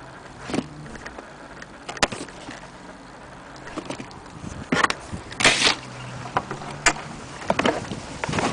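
Handling noises from a vintage record player and its case: scattered clicks and knocks, with a louder half-second scrape or rustle about five and a half seconds in and a quick run of clicks near the end as a mains plug is brought to a socket.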